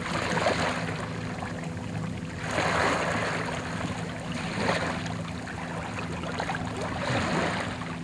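Boat engine running with a steady low hum under water splashing and sloshing at the surface; the splashing swells about two and a half seconds in.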